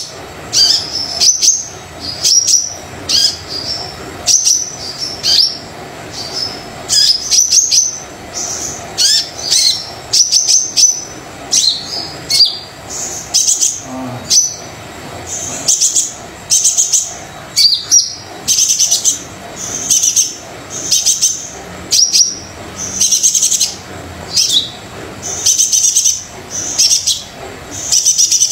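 A sunbird (the 'kolibri dada coklat' of Indonesian bird-keeping) singing vigorously, in quick runs of high, sharp chirps repeated about once or twice a second without a break.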